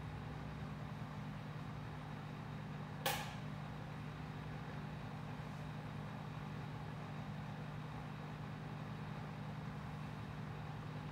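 Steady low mechanical hum of lab equipment, with one short sharp click about three seconds in.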